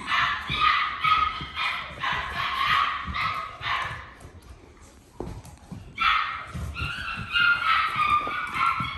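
Seven-week-old poodle puppies whining and yipping in quick, high-pitched cries, in two spells with a short lull around the middle. They are littermates crying because they want to be let out with the others.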